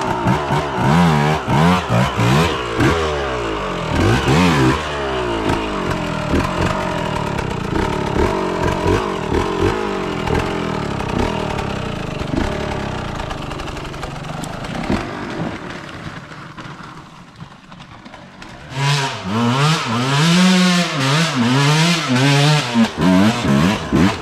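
KTM enduro dirt bike engine revving on a steep hill climb, the throttle opened and closed in repeated rises and falls. The sound eases off partway through, then comes back as a loud run of short, sharp revs and stops abruptly as the bike goes over near the end.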